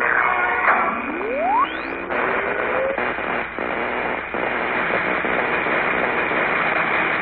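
Animated-cartoon sound effect of an electric ray machine powering up: a rising whine about a second in, then a dense crackling hiss of electric arcs from about two seconds in.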